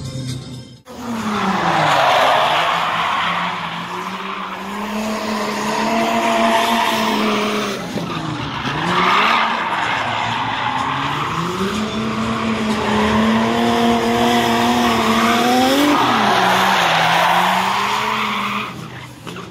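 Drift car's engine held at high revs while its tyres squeal in long slides. The engine pitch dips near the middle, climbs steadily, then drops suddenly about three-quarters of the way through. A short break about a second in.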